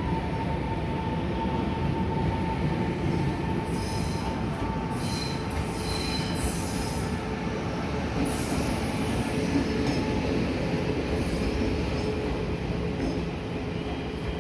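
Tze-Chiang express train pulling into a station: a steady rumble of wheels on rail, with high-pitched wheel squeal coming and going in the middle.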